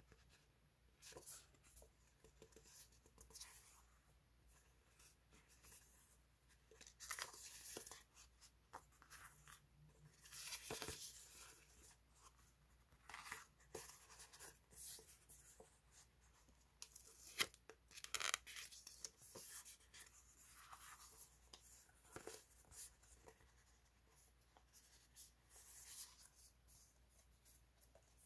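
Paper sticker sheets handled by hand: faint, intermittent rustling and sliding as the sheets are fanned out and rubbed against each other, with a few sharper paper snaps a little past halfway.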